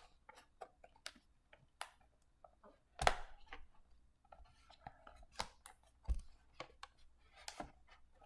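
A toy alarm clock's cardboard box and packaging being handled and opened: irregular clicks, taps and scrapes, with a louder scrape about three seconds in.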